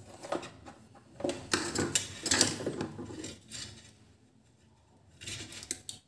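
Hands handling a length of insulated electrical wire and plastic switch boxes: scattered light rustles, clicks and taps, with a quieter stretch about four seconds in.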